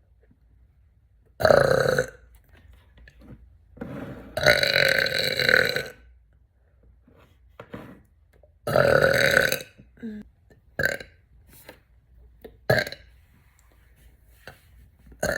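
A woman burping deeply, one burp after another: three long, loud burps in the first ten seconds, the longest about a second and a half, then a few short ones spaced out toward the end.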